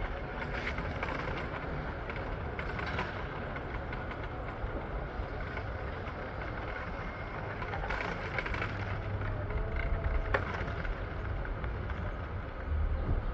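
Steady rumbling ride noise of a moving vehicle, with a faint brief whine and a sharp click about ten seconds in.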